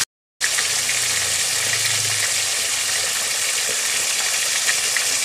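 Pla som (fermented silver barb) frying in hot oil in a non-stick pan: a steady sizzle with small crackles, after a brief dropout in the sound at the start.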